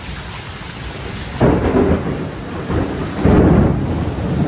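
Heavy rain pouring steadily, then a loud crack of thunder about a second and a half in that rumbles on, with a second surge of thunder about three seconds in.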